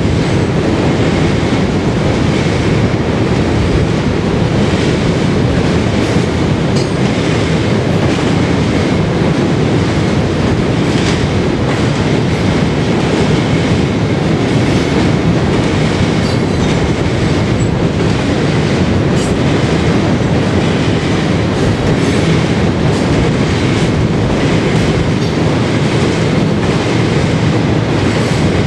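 Florida East Coast Railway mixed freight cars rolling past across a railroad bridge: a steady rumble of wheels on rail with a continuous run of clicks as they pass over rail joints.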